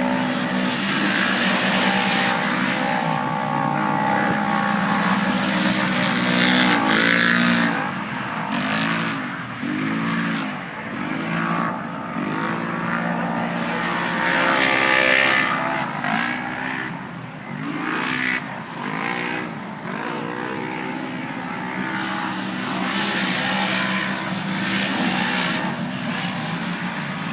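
Off-road race vehicle engines running hard, revving up and down over and over, with more than one engine heard at once.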